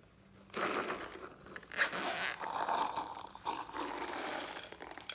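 Zipper on a silicone pencil case being pulled open, then small plastic beads rattling out of it and pattering onto glitter-covered slime. It starts about half a second in as an uneven rasping noise.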